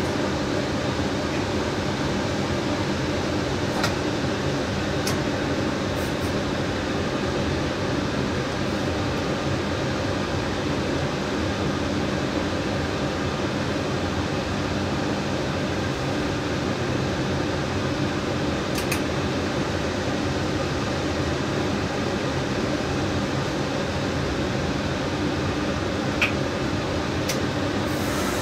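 Steady hum of an electric train's ventilation and onboard electrical equipment, heard inside the driver's cab during a station stop, with a few faint clicks.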